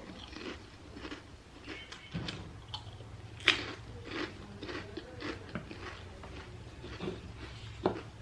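Close-miked chewing and crunching of chatpate, a spicy puffed-rice snack, in irregular small crackles, with two sharper clicks, one about halfway through and one near the end.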